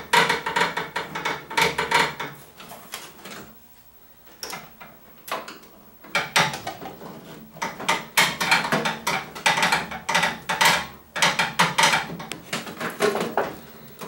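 Screwdriver work on a microwave oven's sheet-metal chassis: irregular clicks, knocks and metal clatter as the screws holding the door-interlock switch block are undone and the block is worked free, with a quieter pause a few seconds in.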